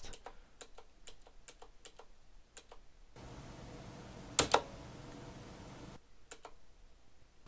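Mechanical keyboard keys, most likely the backspace, being pressed for a sound test: quiet clicks several times a second at first, then a louder pair of clacks about four and a half seconds in. A steady hiss comes in about three seconds in and drops out about six seconds in.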